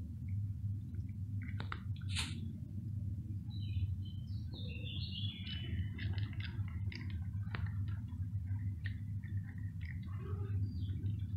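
Cat crunching dry kibble, with sharp irregular crunches throughout, over a steady low background rumble. A bird chirps a few times in the middle.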